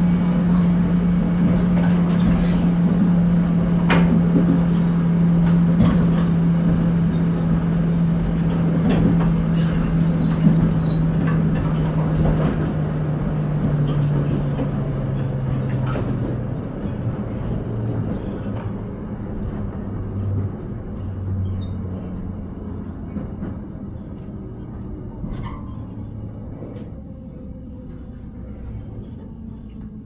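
Electric commuter train slowing into a station, heard from inside the car: a steady motor hum drops in pitch from about halfway through while the running noise fades, with scattered clicks and knocks from the wheels and car body.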